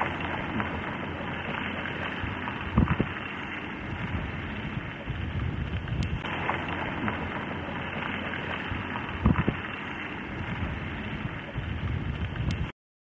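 Steady outdoor background hiss with wind buffeting the microphone in a few low thumps; the sound cuts off suddenly near the end.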